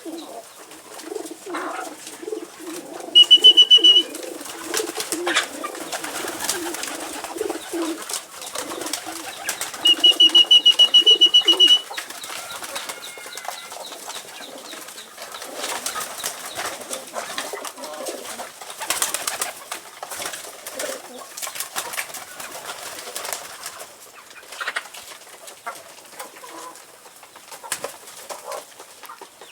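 Domestic pigeons cooing in low, repeated pulses, with scattered clicks and rustles around them. Twice, about three and ten seconds in, a loud, high, rapid trill sounds, the second longer, lasting about two seconds.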